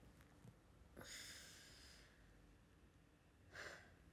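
A woman's faint, heavy breaths: a long exhale about a second in and a shorter breath near the end.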